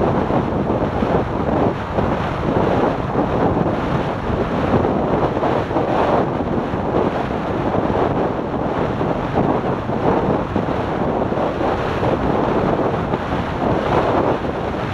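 Wind buffeting the microphone of a motorcycle at highway speed: a loud, steady rush that swells and dips constantly.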